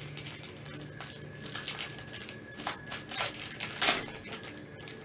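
Clear plastic wrapping crinkling and crumpling as it is handled and pulled off trading-card packaging, in irregular crackles, the loudest a little under four seconds in.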